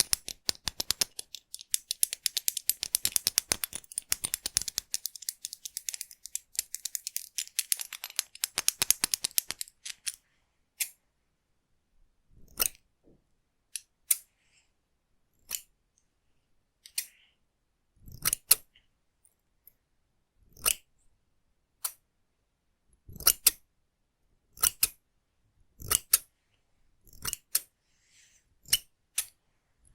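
Hair-cutting scissors snipping close to the microphone: a fast, unbroken run of snips for about the first ten seconds, then single snips every second or two.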